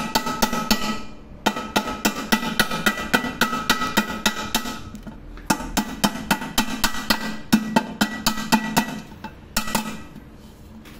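Hammer tapping rapidly, several blows a second, on a rivet set held against a rivet, peening the rivet's head to fasten a handle bracket to a pressure cooker body; the pot rings with each blow. The tapping comes in runs, pausing about a second in and again about five seconds in, with a last short burst near the end.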